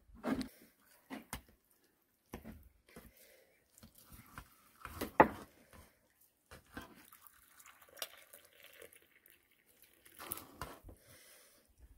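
Scattered clinks and scrapes of tableware as food is served: a slotted metal skimmer scraping in a frying pan and lifting fried eggplant and egg onto a ceramic plate. One sharp knock about five seconds in is the loudest sound.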